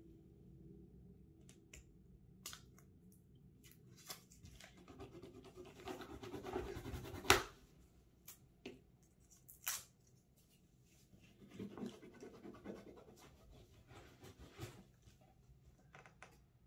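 Marker scratching as it colours on paper, with scattered clicks of pens being handled and set down on the tabletop. One sharper knock comes about seven seconds in.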